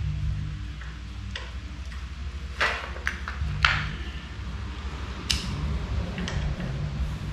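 Hand tools clinking on a go-kart's metal frame and parts: scattered sharp metallic clicks and taps, the loudest about two and a half and three and a half seconds in, over a steady low hum.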